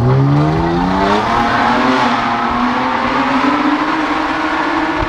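Straight-piped 2017 Nissan Maxima's 3.5-litre V6, muffler and resonator deleted, accelerating: the exhaust note rises steadily for about two seconds, then holds at a steady pitch.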